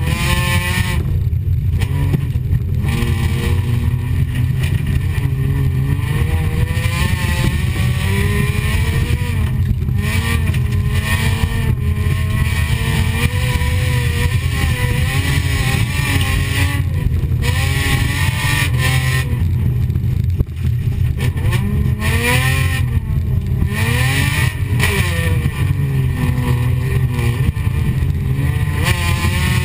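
Folkrace car's engine heard from inside the cockpit at racing speed, revving up and falling back again and again through gear changes and corners over a dense steady rumble, dipping briefly about two-thirds of the way through.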